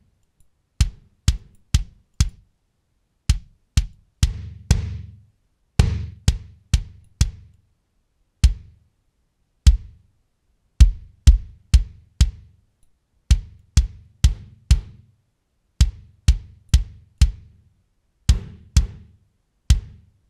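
Sampled Tama Starclassic Maple 22x18 kick drum, triggered alone in a groove pattern: separate short thuds with silence between them. A few hits about four to six seconds in ring on longer in the low end. The sound is heard through the sample's different microphone channels in turn: inside, outside, sub, overheads and room mics.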